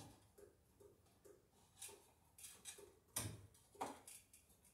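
Faint scattered clicks and short scrapes of hands working on wiring hardware at a ceiling joist, with two louder knocks a little after three seconds and near four seconds in.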